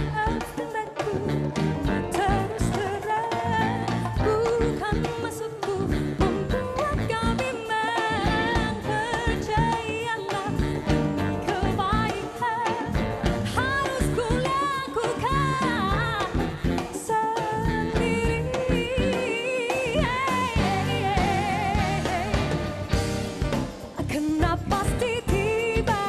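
A woman singing an upbeat Malay pop song live with a full band, drum kit and cymbals prominent, her voice wavering with vibrato on held notes.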